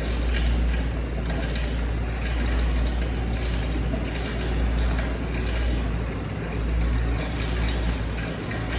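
A steady low rumble with faint ticks and rustles over it, the light sounds of eating from a takeout container.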